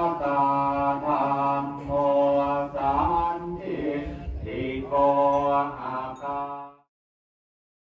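Buddhist monks chanting in unison: a low male chant in long held phrases over a steady drone, which cuts off suddenly shortly before the end.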